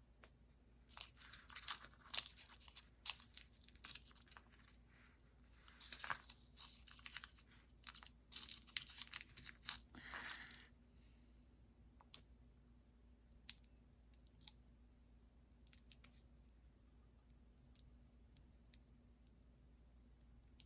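Small plastic kit parts and packaging being handled: light rustling, scraping and clicking in quick runs for the first half, then a few scattered clicks.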